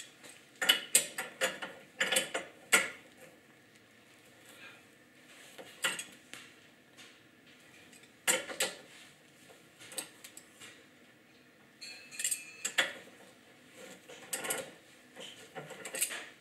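Scattered metallic clicks and clanks of a wrench working the packing-gland nut on a Rotolock refrigeration valve's stem, loosening it. The clicks come in clusters at the start and again in the second half.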